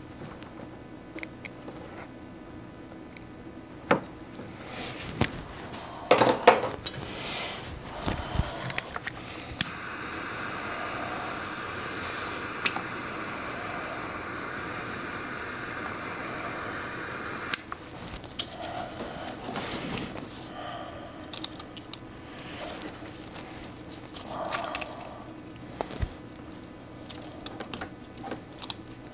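Crimping pliers clicking and wires rustling as a ring terminal is worked onto a cable end. A handheld heat gun then runs for about eight seconds, a steady fan hiss that cuts off suddenly, shrinking the terminal's heat-shrink. More tool clicks and wire handling follow.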